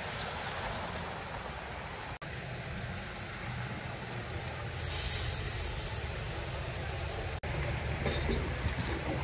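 Busy wet city street in the rain: steady rain and traffic noise over the low hum of idling buses, with a sharp hiss of about a second roughly five seconds in from a bus's air brakes releasing.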